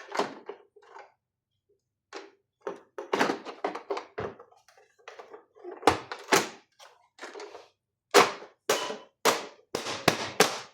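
Cover of a Mindray SV300 ventilator being set back on and pressed into place: a series of knocks and thunks, with a quick run of louder knocks near the end as it is seated flush.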